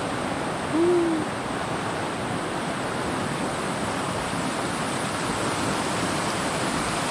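Steady rush of a fast-flowing river. About a second in, a single short, low hoot rises and falls briefly over it.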